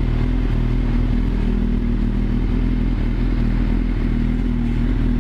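Yamaha YZF-R6's inline-four engine running at a steady speed while riding, with a continuous rush of wind and road noise.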